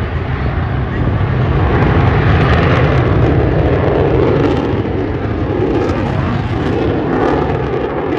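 Fighter jet flying a display pass, its jet engine a steady rushing roar that grows louder about a second in and stays loud.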